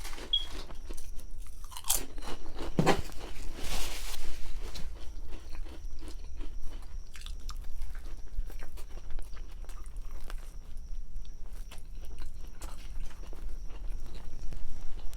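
Close-up chewing and crunching of a grinder sandwich, with many small wet mouth clicks; a louder crunch comes about three to four seconds in.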